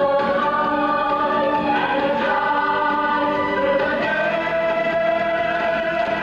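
Cast of a stage musical singing together over band accompaniment, a show tune; about four seconds in the voices settle on one long held note.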